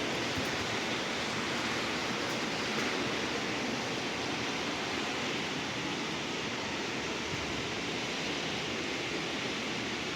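Steady rain falling: a continuous, even hiss.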